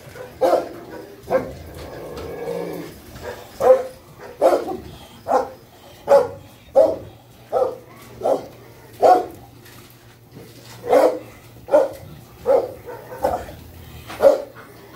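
A dog barking over and over, about one bark every three-quarters of a second, with a short break about ten seconds in.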